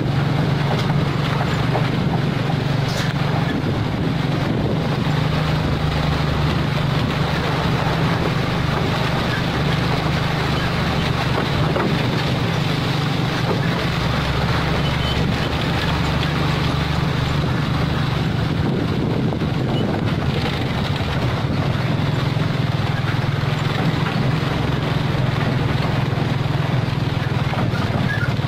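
Mitsubishi Fuso 220PS self-loader truck's diesel engine running steadily as the loaded truck moves slowly along a dirt road, with wind noise on the microphone.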